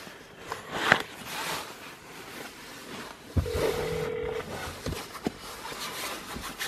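Cell phone call on hold while being transferred to another line: a sharp click about a second in, light rustling, then a single steady telephone tone lasting about a second, three and a half seconds in.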